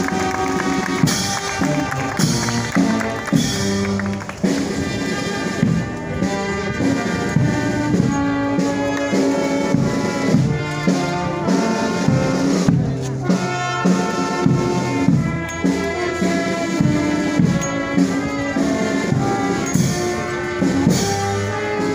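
Brass band playing, with trumpets and trombones carrying the melody over a bass drum.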